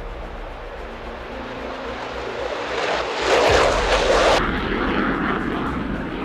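Military jet aircraft engine noise that swells to its loudest about halfway through, then cuts off abruptly at its high end as the footage changes.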